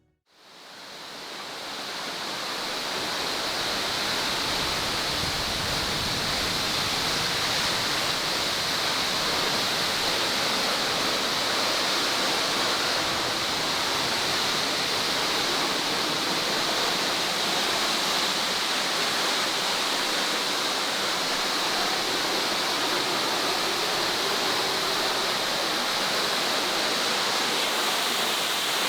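Waterfall pouring: a steady rush of falling water that fades in over the first few seconds, then holds even.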